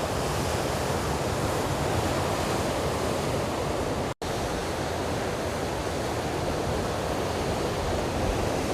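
Stormy sea surf breaking in a steady rush, with wind on the microphone. The sound drops out for an instant about four seconds in.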